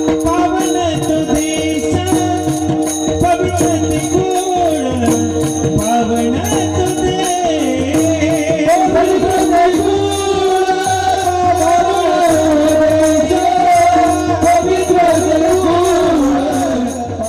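Background music: a wavering melody over a steady jingling beat.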